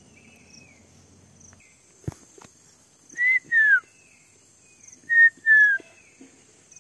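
A bird whistles a loud two-note phrase twice, about two seconds apart: a short rising note, then a longer falling one. Behind it run a steady high insect buzz and fainter descending calls of other birds.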